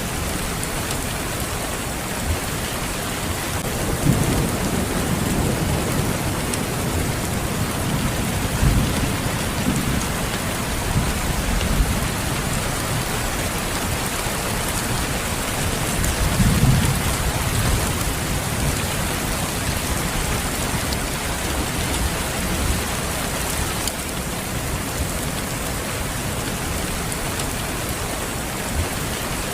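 Steady rain falling, with thunder rumbling low beneath it: a longer roll starting about four seconds in and a shorter one about halfway through.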